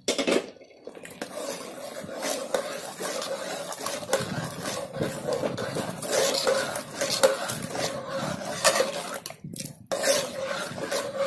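A metal ladle stirring thick dal vigorously in a metal pot, scraping and clinking against the sides with a wet sloshing, broken by a brief pause about nine seconds in.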